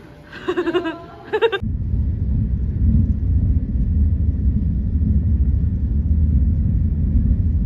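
A brief high voice calling goodbye, then a steady low rumble of a moving passenger train heard from inside the carriage, starting about a second and a half in.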